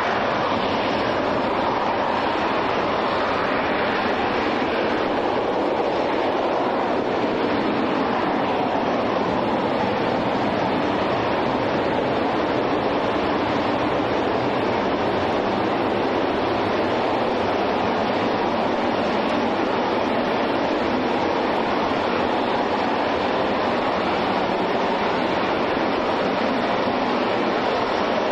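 RS-25 liquid-hydrogen and liquid-oxygen rocket engine firing on a static test stand: a loud, steady, unbroken rush of rocket exhaust noise.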